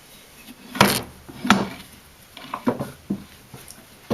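Several sharp knocks and clunks of heavy metal machine parts being handled and shifted by hand, the two loudest within the first second and a half.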